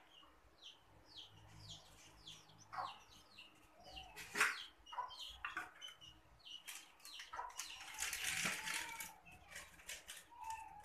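Small birds chirping again and again, short high chirps that fall in pitch, with a sharp knock about four seconds in and a burst of rustling around eight seconds in.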